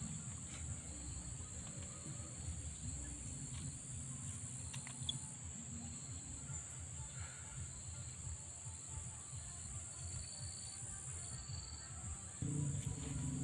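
Steady high-pitched drone of an insect chorus over a low rumble, with a few faint clicks; the low rumble gets louder near the end.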